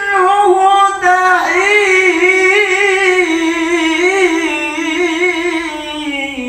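Male qari chanting Quranic tilawah in the Egyptian melodic style, one long melismatic phrase held on a single breath with quick wavering ornaments. Near the end the pitch sinks a little and the voice grows softer.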